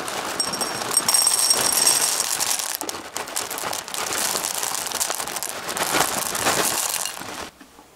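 Oreo O's cereal poured from a foil bag into a glass bowl: a dense, steady rattle of hard cereal pieces hitting the glass and each other, which stops about seven seconds in.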